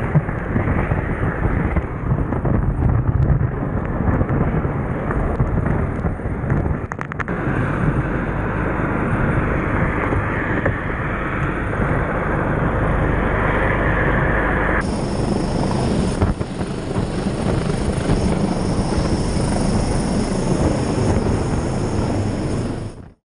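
Search-and-rescue helicopter hovering close overhead, its rotor noise blended with downwash wind rushing over the microphone. The din is continuous, shifts abruptly about fifteen seconds in, and cuts off suddenly near the end.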